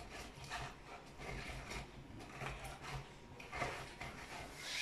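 Half a lemon twisted back and forth by hand on a small plastic citrus reamer: a series of irregular rubbing, squishing strokes as the lemon is juiced.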